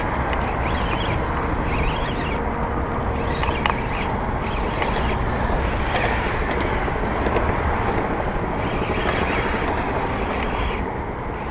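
Steady wind noise buffeting the microphone on an open boat on the water. A brief hiss comes and goes about every second and a half.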